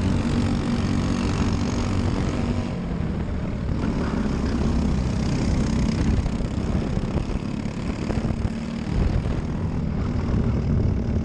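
Briggs & Stratton LO206 single-cylinder four-stroke kart engine running hard during a race, a steady engine note with a brief dip about eight and a half seconds in.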